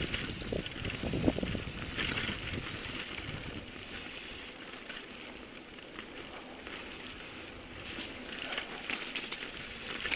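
Mountain bike rolling over a rough, muddy dirt trail: tyres crackling on the ground and the bike rattling over bumps. The knocks are heaviest in the first couple of seconds, the ride goes smoother in the middle, and the crackle picks up again near the end.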